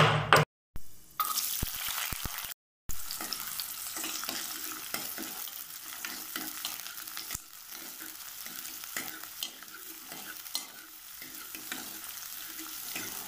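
Shallots and crushed garlic sizzling in hot oil in a kadai, stirred with a steel ladle that scrapes and taps against the pan.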